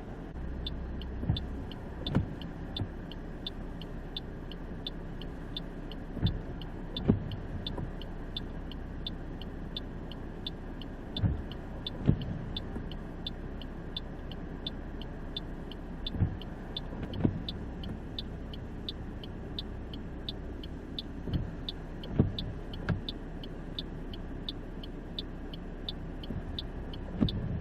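Car idling with a steady low hum. A high click repeats about twice a second, and a pair of thumps comes about every five seconds.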